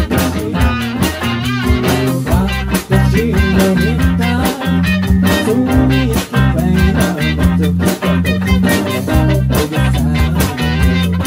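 Band music without words: an upbeat song with electric guitar over a stepping bass line and a steady drum beat.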